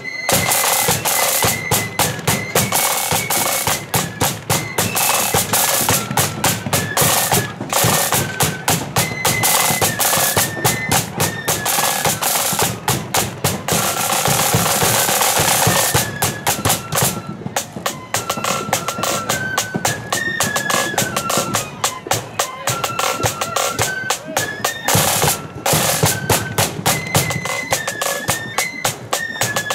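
Marching flute band playing a march: flutes carry a stepping melody over rattling snare drums and the beat of a bass drum.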